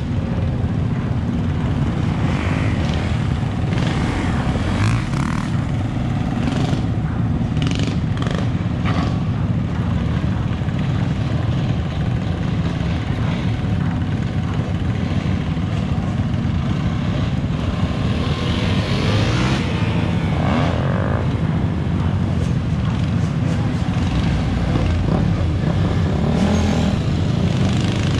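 A crowd of dirt bike and ATV engines idling and revving under a steady low rumble, with a rising rev about two thirds of the way in and another near the end.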